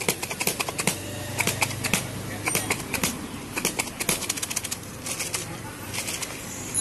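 Dry chanachur snack mix rattling inside a lidded plastic jar as it is shaken hard by hand to mix in the masala: quick, irregular clattering in spurts, with short pauses between shakes.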